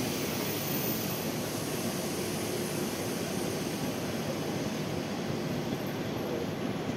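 Steady rushing drone of electric trains at a station platform, with no clear separate knocks or clicks.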